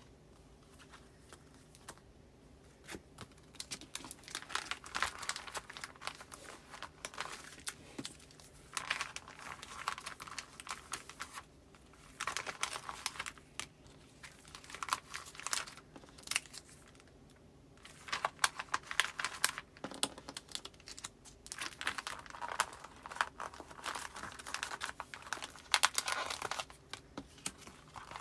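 Paper postcards being handled and slid into plastic file sleeves: crinkling and rustling in irregular bursts with sharp little clicks, broken by brief pauses.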